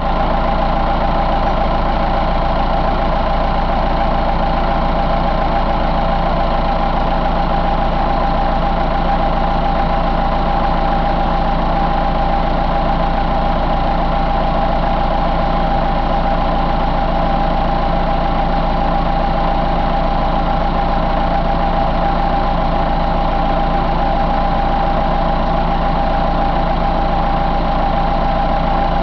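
John Deere 4045T four-cylinder turbocharged diesel engine idling at a steady, unchanging speed, with a steady high tone above the engine note.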